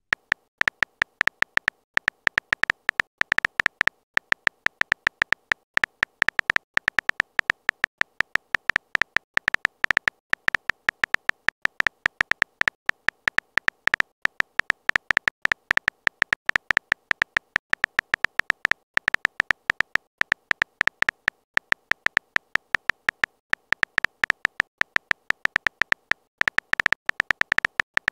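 Phone on-screen keyboard key-press clicks, a rapid, uneven run of short ticks, several a second, as text is typed.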